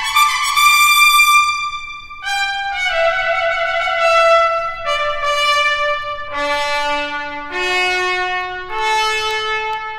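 A solo trumpet playing a slow phrase of held notes: a high note held for about two seconds, then stepping downward, dropping to a low note about six seconds in and climbing back up note by note.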